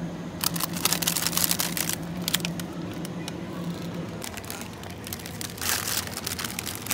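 Plastic packaging of a frozen noodle bag crinkling as it is taken off a freezer shelf and put into a plastic shopping basket, in two bouts: from about half a second in to two and a half seconds, and again near six seconds. A steady low hum underneath stops about four seconds in.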